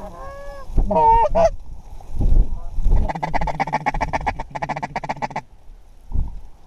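Goose honks: a few clear honks in the first second and a half, then a fast run of rapid honking clucks from about three seconds in, lasting a couple of seconds. Dull low thumps sound in between.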